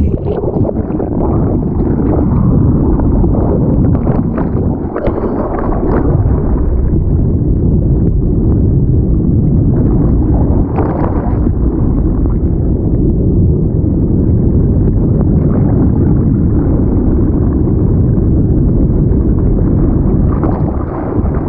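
Underwater water noise from a camera held below the surface: a steady, muffled low rush with occasional bubbling and splashing crackles.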